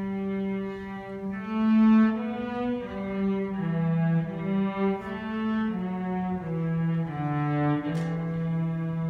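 Student orchestra's bowed strings playing a slow passage: a held low note, then a melody stepping from note to note about every half second, settling onto a long held low note near the end.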